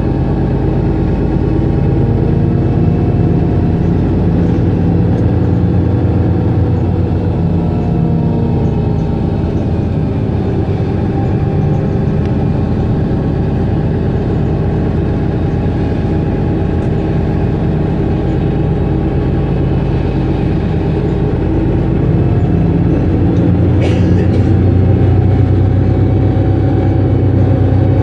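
Mercedes-Benz O530 Citaro city bus's diesel engine idling steadily while the bus stands at the stop. About three quarters of the way through it gets a little louder and deeper, and there is one short sharp noise soon after.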